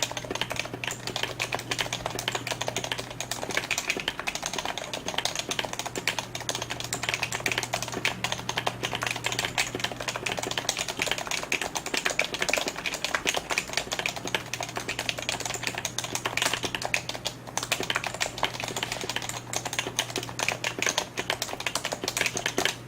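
Fast, continuous typing on a PFU Happy Hacking Keyboard Professional 2 with Topre electrostatic capacitive switches: a dense stream of rapid keystrokes, with a faint steady low hum underneath.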